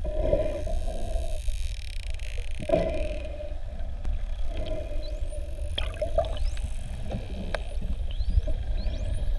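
Underwater sounds of bottlenose dolphins: sharp clicks and, from about six seconds in, a string of short upward-sweeping whistles, over a low hum and water noise.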